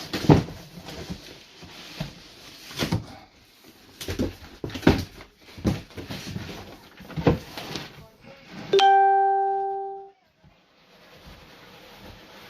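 Cardboard box being handled and turned over, with scattered knocks and rustles. About nine seconds in comes a single loud bell-like chime that rings out for about a second.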